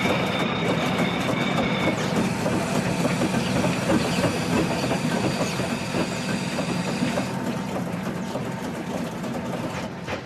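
Steam-driven line-shaft workshop machinery running: a steady rapid clatter of shafting, flat belts and machines. A thin high tone stops about two seconds in.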